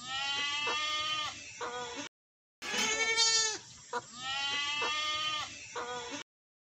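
Goat bleating: long quavering bleats mixed with short ones, the same run of bleats heard twice, stopping shortly before the end.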